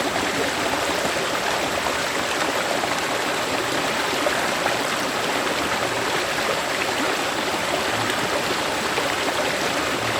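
A river flowing over rocks, a steady rushing of water.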